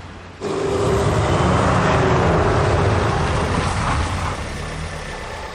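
A road vehicle going by, with engine and tyre noise that starts abruptly about half a second in and fades away over the last second or so.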